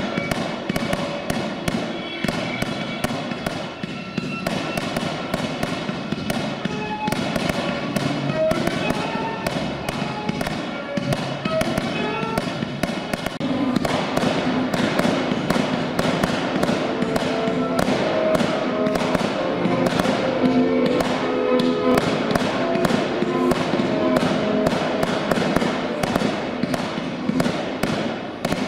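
Aerial fireworks going off in a steady run of sharp bangs and crackles, with music playing underneath that grows fuller about halfway through.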